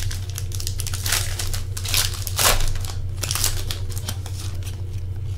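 A foil trading-card pack wrapper being torn open and crinkled by hand, in irregular crackling strokes, over a steady low electrical hum.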